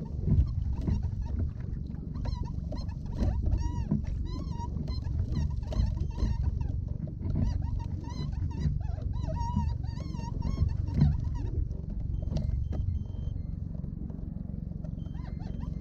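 Spinning fishing reel being cranked, a whirring whine that rises and falls with each turn of the handle, over a heavy low rumble. The whine stops about twelve seconds in.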